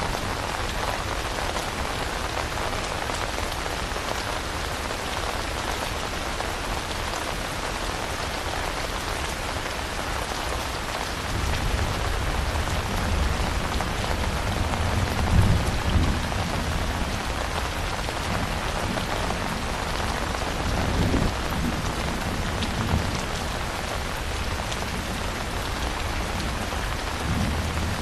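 Steady rain falling. About ten seconds in, a low thunder rumble joins it, swelling twice before building again near the end.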